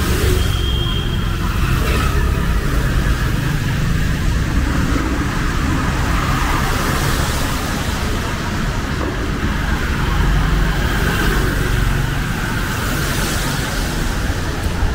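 City road traffic on a wet road: vehicle engines giving a steady low rumble, with the hiss of tyres on wet asphalt.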